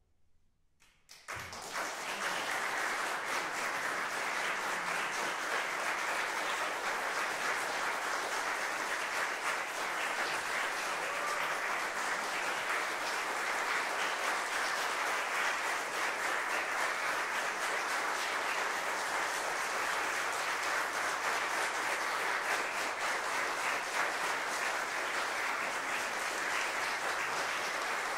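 Audience applauding, starting suddenly about a second in after a brief hush and holding steady.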